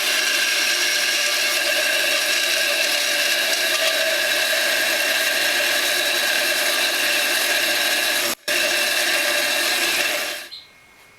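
Power saw running steadily as it cuts through a steel C-clamp, with a brief break a little past eight seconds; it stops shortly before the end.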